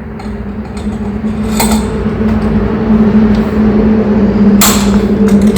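Steady machine hum that grows louder, with two sharp metallic clinks, one early and one near the end.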